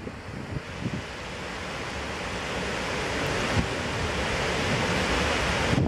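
Overflowing reservoir dam: floodwater rushing in a steady, even sheet over the spillway crest, slowly growing louder, with wind buffeting the microphone.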